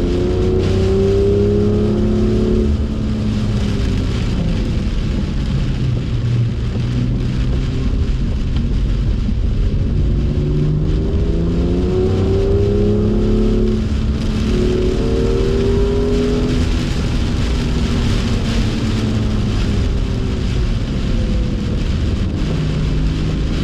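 BMW F87 M2's turbocharged straight-six pulling hard, its pitch climbing through the revs and dropping back at each change several times, over a steady hiss of rain and tyre spray on a soaking wet track.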